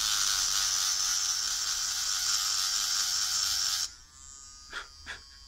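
Small rotary burr on a Hypograph tattoo machine converted into a rotary file, grinding and deburring an aluminium part with a loud, high-pitched grinding noise. The grinding stops suddenly about four seconds in as the part comes off the burr, leaving the motor's faint high whine and a few light clicks.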